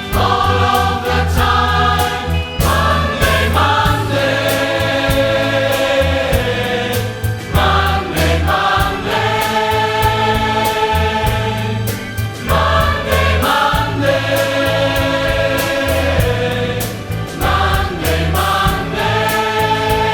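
Massed choir of about 400 voices singing a pop song in harmony, over instrumental backing with held bass notes and a steady beat.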